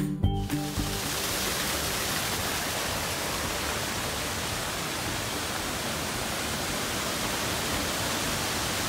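Background music cuts off about half a second in, followed by a steady, even rushing hiss with no distinct events.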